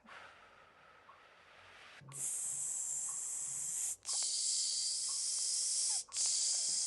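A woman breathes in quietly, then exhales through her teeth in a long, loud "sss" hiss, broken by two brief gaps into three stretches of about two seconds each. This is the hissing exhale of a paced breath-control exercise.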